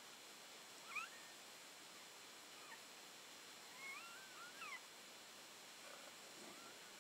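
Newborn puppies giving faint, high squeaky cries: a few short rising squeals, the loudest about a second in and a cluster of them around four seconds in.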